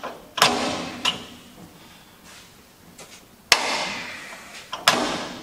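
Engagement lever of a wood chipper's twin-disc clutch being pushed and pulled through its travel: three sharp metallic clunks, about half a second in, around three and a half seconds and near the end, each ringing off briefly. The clutch is adjusted right to maximum engagement and is hard to push.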